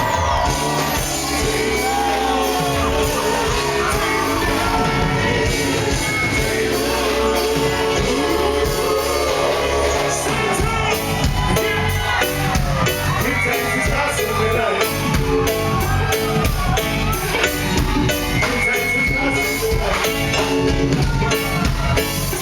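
Live reggae band playing an intro with drums and bass, with singing and shouted vocals over the music.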